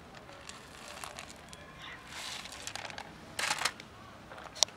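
Dry cat kibble being poured out of a plastic tub onto gravelly ground: a scattering rattle of pellets, loudest about three and a half seconds in, with a sharp click near the end.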